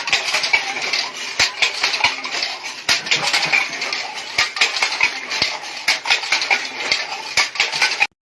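Dense, irregular clatter of small hard objects knocking together, with many sharp clicks. It cuts off abruptly near the end.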